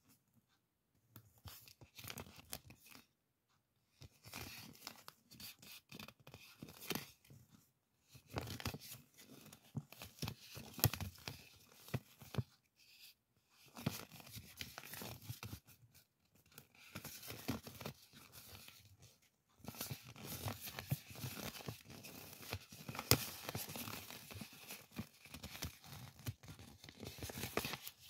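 A curled strip of printed calendar paper handled and unrolled by hand: irregular rustling, crinkling and peeling sounds with sharp little clicks, in stop-start bursts that grow busier near the end.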